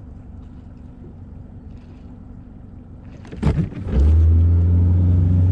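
A bass boat's outboard motor starting: a short cranking burst a little over three seconds in, then the engine catches and runs steadily with a loud low tone.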